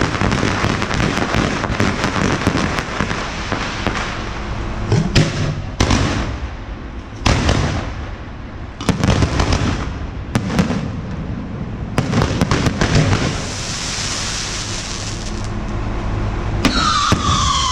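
Fireworks going off: dense crackling with several loud bangs, and falling whistles near the end.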